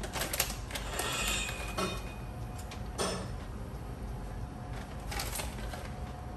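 A plastic bag of bacon bits crinkling in a few short bursts as bits are shaken out of it into a pan, over a steady low rumble.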